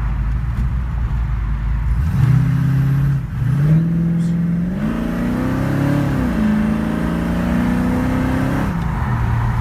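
A 1968 Mustang's 347 stroker small-block V8 heard from inside the cabin while driving. The engine runs low and steady, then the note climbs as the car accelerates about two seconds in. It dips briefly about three seconds in, climbs again to a peak around six seconds in, holds steady, and falls back near the end.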